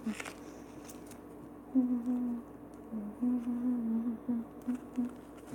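A girl humming a tune with her mouth closed, in a string of short and longer held notes.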